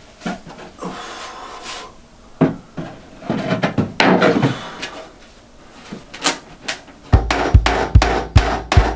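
Wooden shelf boards knocking and scraping as they are handled and set into place: a handful of separate knocks and rubs. Music with a steady drum beat starts near the end.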